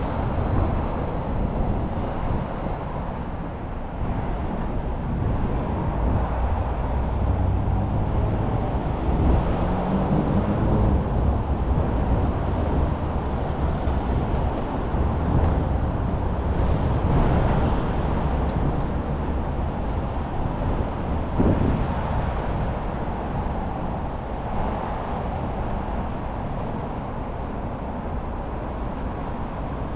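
Street traffic: a steady low rumble of motor vehicles passing, swelling louder in the middle as vehicles go by.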